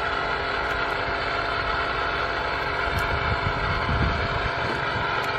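Engine-driven water pump running at a steady pace, a constant noisy drone.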